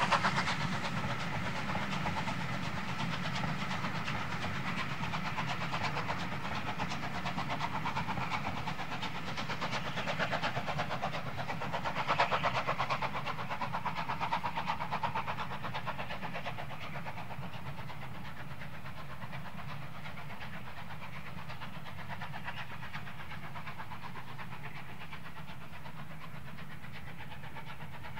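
Bulleid 'Battle of Britain' class three-cylinder Pacific steam locomotive under steam with a passenger train: rapid exhaust beats and the clatter of the carriages, fading away over the first fifteen seconds or so, after which only a steady background remains.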